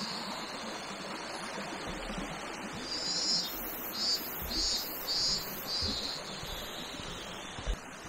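Steady rushing of a mountain stream's flowing water. High chirping pulses repeat about twice a second above it.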